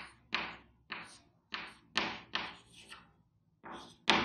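Chalk writing on a chalkboard: a run of short, sharp taps and scrapes, about two a second, as a word is written stroke by stroke.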